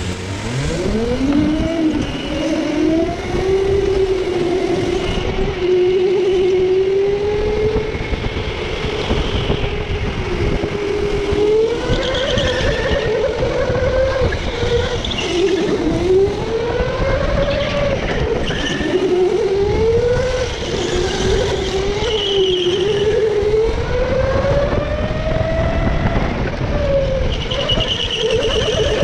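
Racing go-kart's motor heard from onboard, its pitch climbing steeply in the first second and then rising and falling again and again with the throttle through the corners. Short high tire squeals come in now and then.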